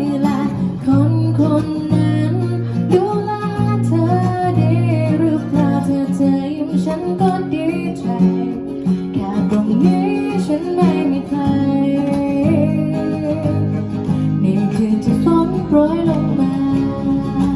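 Acoustic guitar strumming and picking the accompaniment of a slow pop song.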